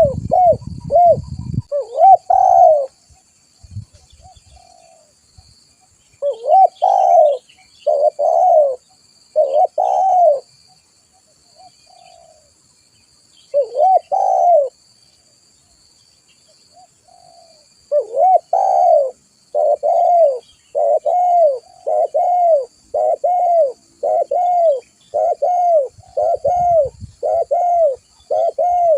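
Spotted dove cooing: repeated short arched coos in phrases, then a long unbroken run of about one coo a second through the second half.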